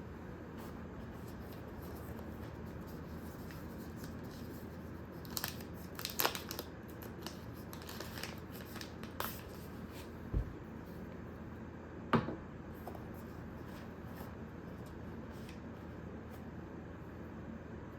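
Packaging and small parts being handled: a few short rustles and light clicks between about five and nine seconds in, a low thump a little after, and one sharp click near the middle, over steady background noise.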